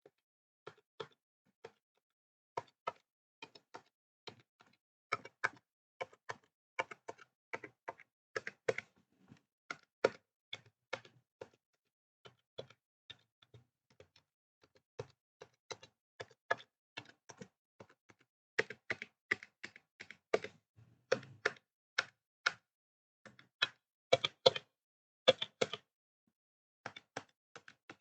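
Typing on a Razer Huntsman Mini 60% keyboard with linear red optical switches: irregular key clacks in quick runs, broken by short pauses.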